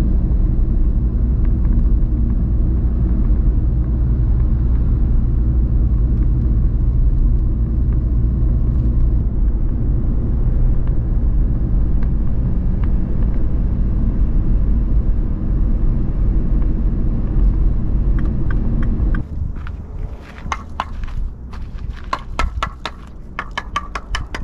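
Road and engine noise inside a Mini Countryman's cabin while driving, a steady low rumble. About 19 seconds in it gives way to a quieter outdoor scene with a run of sharp clicks and knocks.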